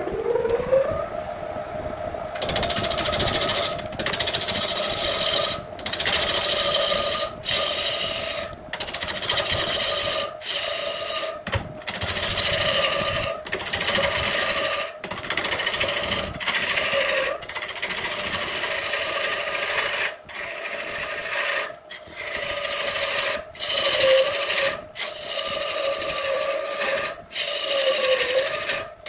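Wood lathe motor spinning up with a rising whine, then holding a steady hum while a turning tool cuts into a large spinning log blank, a rough scraping and rasping that breaks off briefly every second or two as the tool lifts. The motor's hum dips in pitch now and then under the cut.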